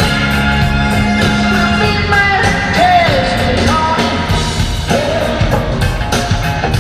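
Live rock band playing loudly with a lead vocal singing over it, in an arena.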